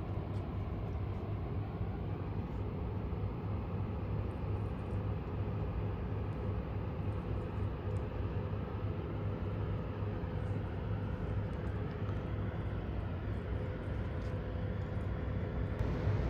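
Steady low drone of a cruise ship's diesel engines carried across open water, with a faint hum riding above the rumble.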